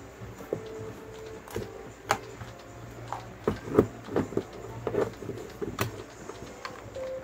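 Electric fan motor parts being handled and fitted together: irregular clicks and light knocks of the metal housing and end cover against each other as the stator is seated over the rotor shaft. There is a brisk cluster of knocks in the middle, the loudest of them a little under four seconds in.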